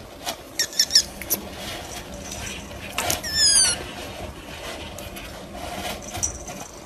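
Kitten mewing: a few short high-pitched squeaks about a second in, then a longer mew that falls in pitch about three seconds in.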